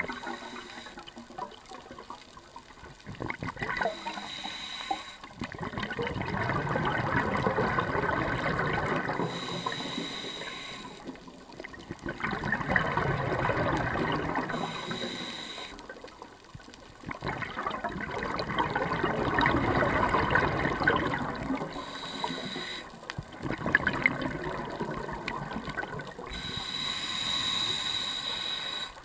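Scuba diver breathing through a regulator underwater: long bubbling exhalations alternate with short hissing inhalations, about one breath every five seconds.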